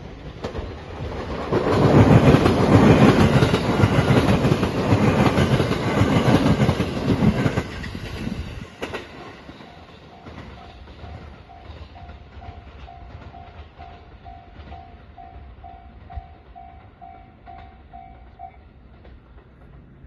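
Marine Liner electric train passing close by, its wheels clattering over the rail joints, loudest from about two to eight seconds in and then cutting off suddenly. Then a Japanese level-crossing warning bell rings at about two dings a second and stops shortly before the end.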